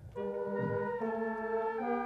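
Brass ensemble playing slow, held chords that begin a moment in and change about once a second, in a stately ceremonial style.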